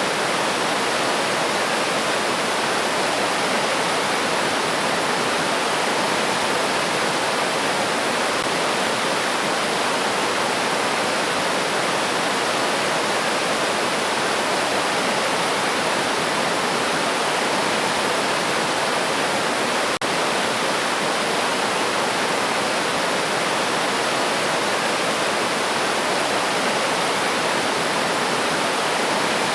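A river's water rushing steadily, an even wash of flowing-water noise.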